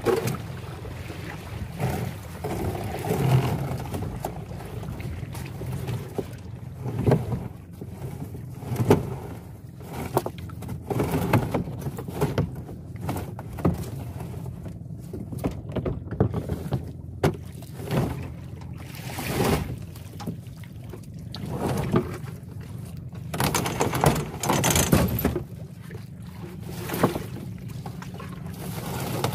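A wet rope being hauled hand over hand out of the lake over the side of a wooden boat, with a splashing, rubbing surge at each pull every second or two, over a steady low rumble of wind on the microphone. Near the end the fishing net starts to come up out of the water.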